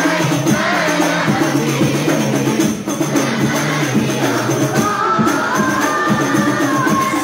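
Hadroh devotional music: rebana frame drums beating a dense, steady rhythm under voices singing a sholawat melody.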